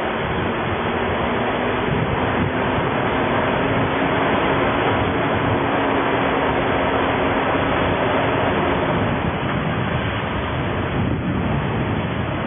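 Traffic noise and wind rush from a moving vehicle on a town street, with a steady low engine hum that drops away about nine seconds in.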